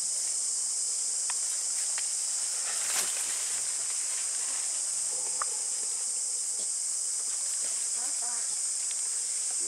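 A steady high-pitched insect chorus from the surrounding forest, droning without a break. A single sharp click stands out about three seconds in.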